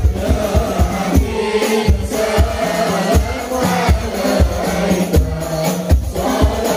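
A group of men singing a devotional salawat together in unison, backed by steady low frame-drum beats, as at the standing (mahallul qiyam) part of a Maulid recital.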